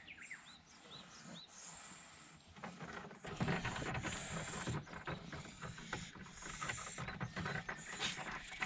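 A cat sharpening its claws on the weathered wooden boards of a shed: rapid rasping scratches that start about three seconds in and keep going. A few faint short chirps come before it.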